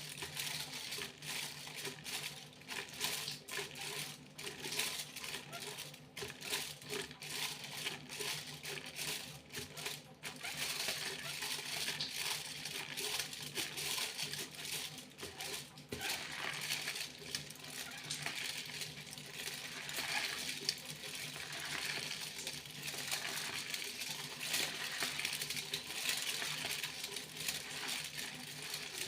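Foil being crinkled and handled close up: a continuous rustling crackle of many fine clicks, growing denser and more even about halfway through.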